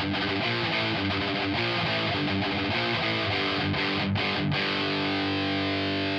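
Electric guitar played through the Audiority L12X, a Marshall JCM-style solid-state amp simulation plugin, with its built-in cabinet simulation and a modest amount of gain. It plays held notes and chords at a steady level.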